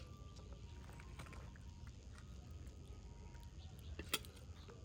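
Outdoor street background noise: a steady low rumble with scattered light clicks and one sharper click about four seconds in.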